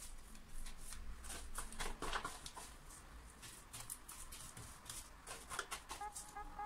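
Faint, irregular scratchy strokes of a paintbrush being worked over a wooden desk panel, with the brush handled against the foil paint tray near the end.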